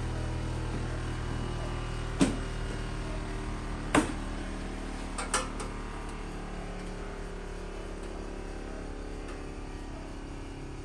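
Three sharp knocks or clanks, about two, four and five seconds in, over a low steady hum that fades away.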